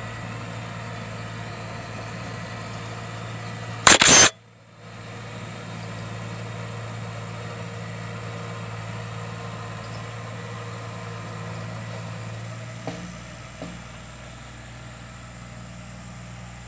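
Steady low engine hum, most likely the tractor tilling the plot nearby, with a brief loud burst of noise about four seconds in.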